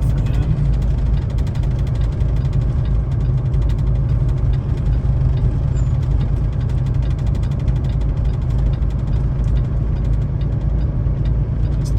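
Semi truck's diesel engine and road noise heard inside the cab: a steady low rumble with a fast, even ticking over it, the truck creeping downhill in a low gear on snow-chained drive tires.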